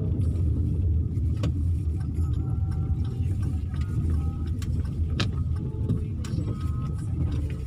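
Car driving, heard from inside the cabin: a steady low rumble of engine and tyres, with a couple of sharp clicks.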